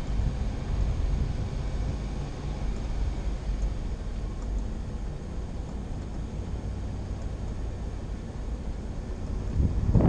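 Vehicle driving on a dirt road, a steady low rumble of engine and tyres. Near the end, wind on the microphone rises sharply and becomes the loudest sound.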